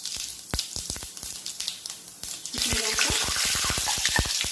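Whole cumin seeds crackling and popping in hot oil, with a frying sizzle that grows denser a bit over halfway through.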